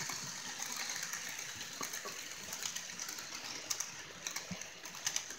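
HO scale model freight cars rolling past on the track: a steady rolling hiss with irregular small clicks from the wheels, the clicks coming more often in the second half.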